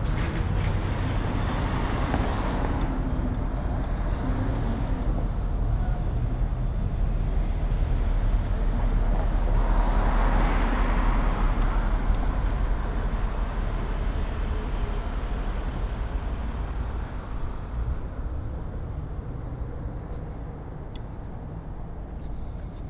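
Street traffic: a steady low rumble of cars on a city street, with one vehicle passing close by about ten seconds in. The rumble eases off near the end.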